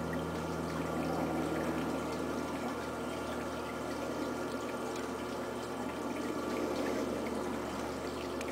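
Potter's wheel turning with a steady hum, and the wet swish of clay slip under the potter's hands as he throws the rim of a large earthenware pot.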